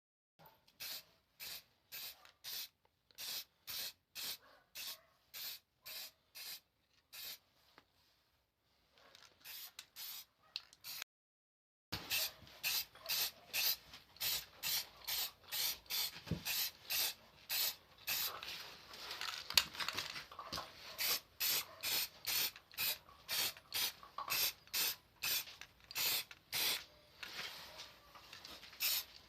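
Rhythmic hand rubbing strokes on a metal part, about two a second, with a dry hissing scrape on each stroke. The strokes stop briefly about eleven seconds in, then go on louder.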